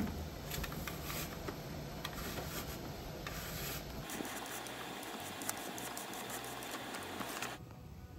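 Steel fish tape being fed off its reel up through a travel trailer's ceiling cavity: a steady rubbing and scraping of the tape against the duct and framing, with a few light clicks from the reel.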